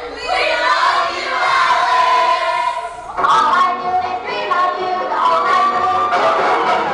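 A song sung by a group of voices together over music, holding long notes; a new, louder phrase comes in about three seconds in.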